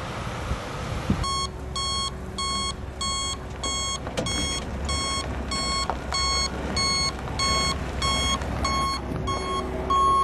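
Tilt-tray tow truck's reversing alarm beeping steadily at about two beeps a second, starting about a second in, with the truck's engine running underneath as it backs up.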